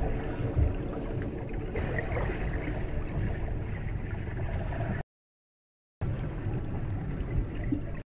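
Water gurgling and bubbling in a saltwater reef aquarium over a steady low hum, with a low thump near the start. The sound cuts out completely for about a second just past the middle.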